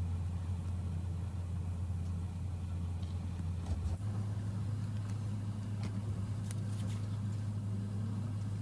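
A steady low electrical or machine hum that shifts slightly in pitch about four seconds in, with a few faint clicks and taps in the second half.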